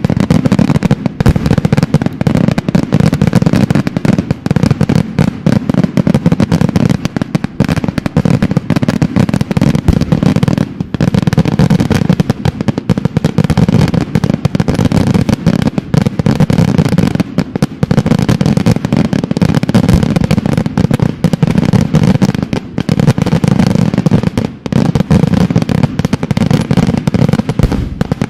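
Daytime fireworks display: a dense, continuous barrage of loud bangs from aerial shells bursting into coloured smoke and white debris, one report hard on the next.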